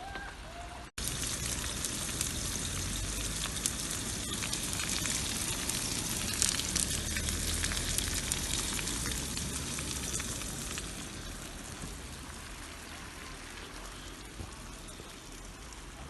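Sucuk frying in oil in a pan: a dense sizzle full of small spitting pops. It cuts out for an instant about a second in, comes back louder, then eases off after about eleven seconds.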